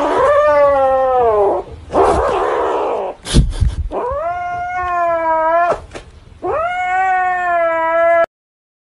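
Grey kitten giving three long, drawn-out growling yowls, with a hiss-like stretch and a brief bump between the first two; a cat warning off a hand reaching for the toy it is guarding. The sound cuts off suddenly near the end.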